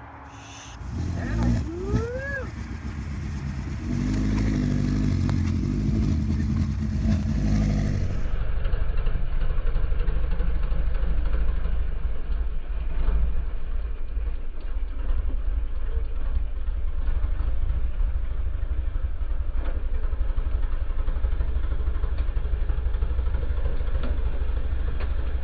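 1978 Honda CB750 Four's inline-four engine running and revving, with rising pitch early on. From about a third of the way in, the sound is slowed down into a deep, steady low rumble as the bike rides up the ramp into the pickup bed.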